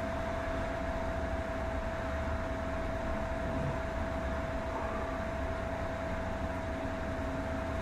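Steady room hum and hiss with a constant whining tone, from a running electrical appliance.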